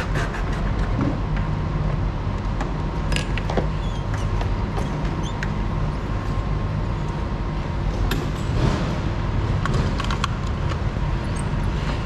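A steady low mechanical hum with scattered clicks and knocks.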